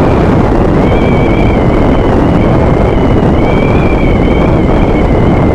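Motorcycle riding at highway speed: wind buffeting the bike-mounted camera microphone over the road and engine noise, with a faint steady whine that wavers slightly in pitch.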